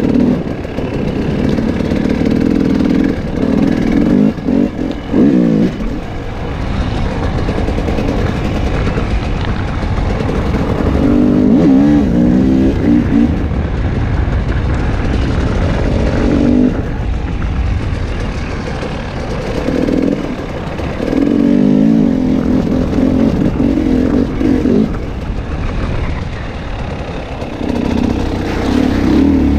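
KTM 300 XC-W two-stroke enduro motorcycle engine, revving up and easing off again and again as the bike is ridden along a dirt trail.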